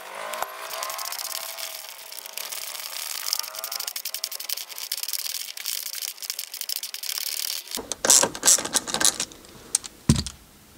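Ratchet wrench on an extension and socket clicking rapidly as it spins out a bolt of the Volvo V70's rear shock top mount, with a thin squeak rising and falling in the first few seconds. The clicking stops about eight seconds in, followed by clinks and handling of the loosened bolt and tool and a sharp knock near the end.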